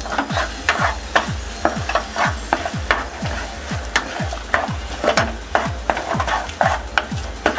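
Wooden spatula stirring and scraping thick mashed-potato masala in a frying pan, in quick irregular strokes with a light sizzle. A steady low beat of background music runs underneath.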